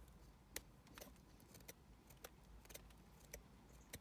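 Faint, irregular sharp clicks, roughly two a second, of fingernails scratching at and handling a small enamel metal sign.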